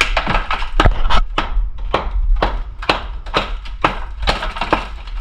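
Hammer blows tapping a sewer pipe down into place in the trench: a run of sharp knocks, about two a second.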